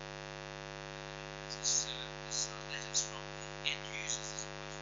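Steady electrical mains hum with a buzzy stack of overtones. Several short, faint hissy sounds are scattered over it.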